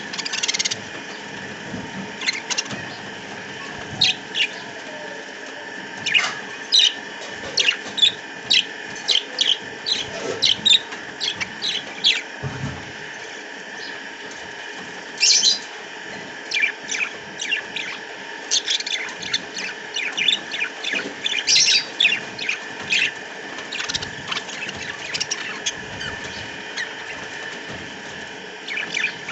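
Flock of budgerigars chirping and chattering, a constant stream of short, high chirps over a steady background of flock chatter.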